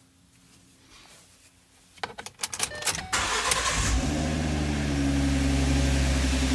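Ford Mustang engine being started just after an oil change: about a second of starter cranking with irregular clicks, then the engine catches about three seconds in and settles into a steady idle.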